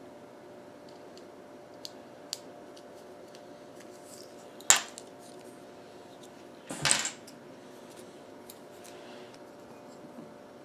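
Small hard parts being handled on a tabletop, clicking and clattering: a few light ticks, then a sharp click about halfway through and a short rattling clatter about two seconds later.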